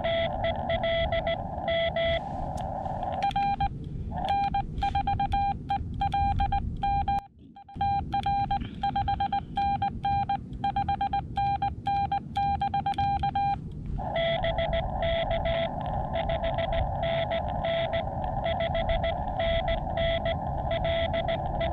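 Morse code (CW) tones from a Xiegu X6100 transceiver over filtered band hiss. The other station's keyed signal plays first, then the operator's own sending comes in at a slightly higher pitch for about ten seconds, and the other station's reply returns near the end.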